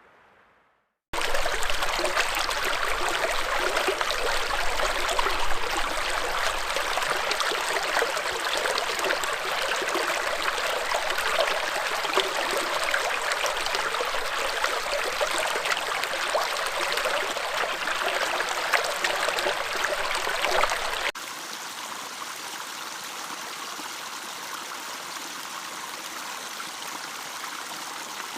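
Stream water flowing steadily. It starts suddenly about a second in after a moment of silence, and about two-thirds of the way through it cuts abruptly to a quieter, softer-flowing stream.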